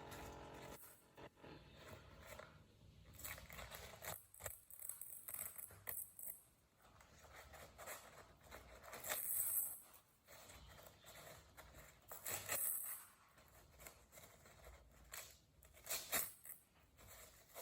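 Paper towel being handled: irregular crinkling and scrunching with small taps, and louder crackling bursts about nine and twelve seconds in.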